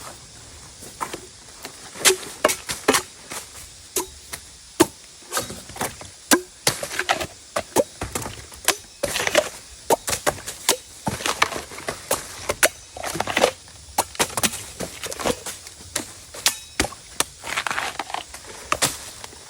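Bamboo shoots being cut with a blade: a long run of sharp, irregular chopping strikes, often two or three in quick succession, some with a short woody ring.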